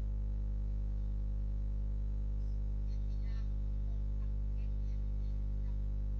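Steady electrical mains hum, a low buzz with a stack of even overtones at a constant level, with a few faint, brief sounds about three seconds in.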